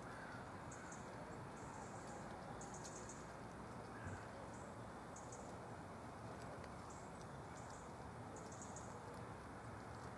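Small tits calling: short, very high, thin notes, repeated in little clusters, over a faint steady background hiss.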